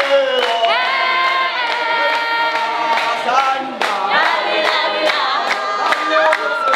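A group of men and women singing a traditional Tswana song together in harmony, unaccompanied, with steady rhythmic hand claps cutting through the voices.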